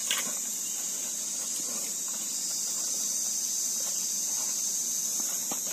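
Steady high-pitched chorus of insects trilling without a break, with a few faint clicks from hands working in the wooden hive box.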